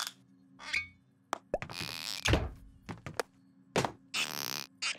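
Cartoon sound effects of a glass bottle being wrestled open by hand: a string of short knocks and thunks, with two longer hissy bursts about two seconds and four seconds in.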